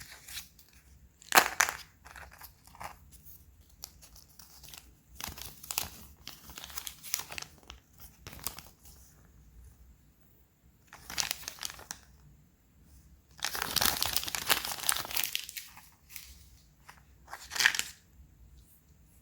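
Kinder egg wrappers crinkling and tearing as they are unwrapped by hand, in a series of separate rustling bursts with a longer stretch of crinkling about two thirds of the way through.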